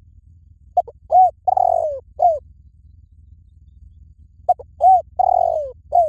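Spotted dove cooing: two matching phrases about four seconds apart, each of two short coos, a longer falling coo and a short final coo.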